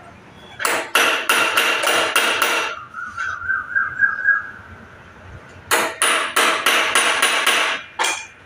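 Hammer striking metal at a Hero Passion Pro motorcycle engine during engine fitting. The blows come in two quick runs of about four a second, each lasting about two seconds with a pause of about three seconds between, and one last blow near the end.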